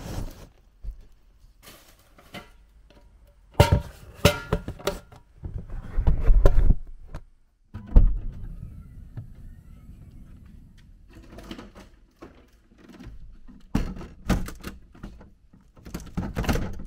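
Gear being loaded into a car's cargo area: irregular thunks and knocks, in several separate clusters, as a plastic storage box and a wooden board are set down and slid across the carpeted floor.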